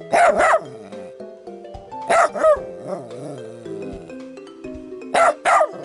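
A dog barking in three quick double barks, about two and a half seconds apart, over background music.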